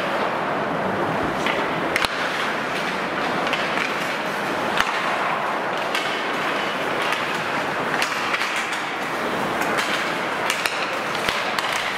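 Ice hockey play on a rink: a steady scraping rush of skates on the ice, broken every second or two by sharp clacks of sticks and puck.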